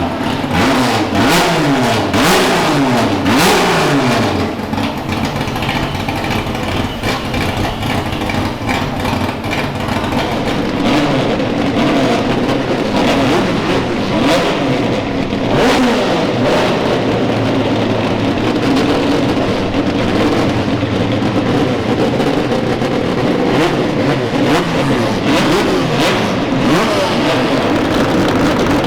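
Procar 4000 race cars with inline six-cylinder engines racing past at full throttle, several at once. In the first few seconds the engine notes drop in pitch one after another as the cars go by; after that, overlapping engines keep up a steady drone.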